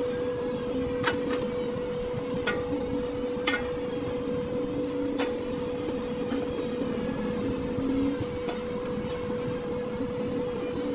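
A machine running with a steady, unbroken hum, with a few sharp clicks and taps over it.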